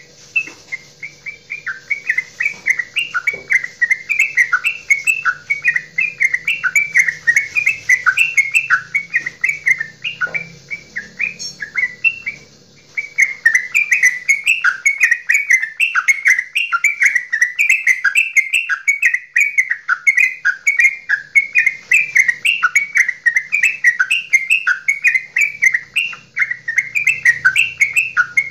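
Yellow-vented bulbul (trucukan) singing a long, rapid chattering 'goklik' song of quick rising and falling notes. It breaks off briefly about twelve seconds in, then carries straight on.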